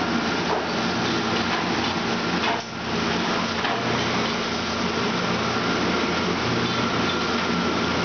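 High-speed commercial dishwasher running: a steady rush of spraying water over a motor hum, with a few light knocks and a brief lull about two and a half seconds in.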